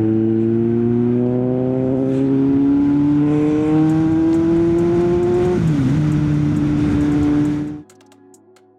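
Kawasaki Z900 inline-four motorcycle engine under acceleration, its pitch rising steadily for about five seconds, dipping briefly at a gear change and then holding steady, with wind noise across the microphone. The sound cuts off abruptly near the end.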